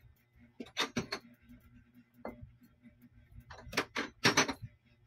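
A few sharp clicks and knocks: a quick group of several about a second in, a single one a little past the middle, and a louder group near the end.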